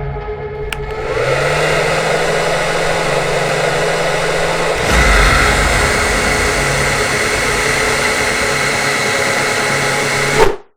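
Hair dryer running, a steady blowing rush that builds up about a second in, gets louder about five seconds in, and cuts off suddenly near the end.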